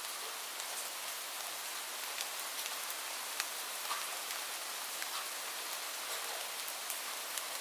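Light rain falling steadily: an even hiss with scattered individual drops ticking close by.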